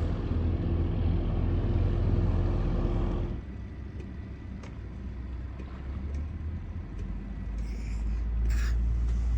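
An engine running steadily with a low drone. It drops in level about three seconds in and grows louder again near the end, with a brief high hiss about eight seconds in.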